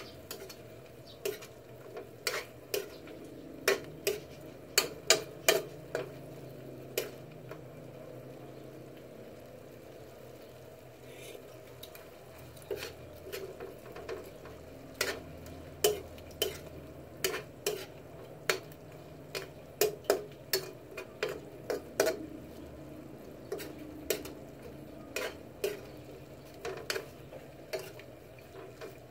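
A utensil stirring chicken simmering in adobo sauce in a metal frying pan, knocking and scraping against the pan in irregular clicks, with a pause of several seconds about a quarter of the way in. The sauce sizzles steadily underneath.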